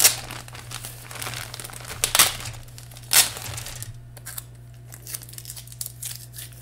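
Clear plastic bag crinkling as hands open it around a sprue of plastic model-kit parts. There are three sharp crackles in the first three and a half seconds, then only faint rustles.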